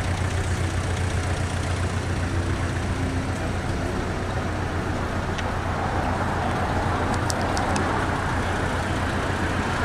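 BAC Mono's 2.5-litre four-cylinder engine idling steadily with a low, rapidly pulsing hum, growing a little louder and fuller after about six seconds. A few short high clicks sound briefly about seven seconds in.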